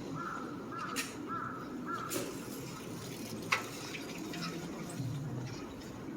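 A crow cawing four times in quick succession over a steady low hum of street noise, with a few sharp clicks.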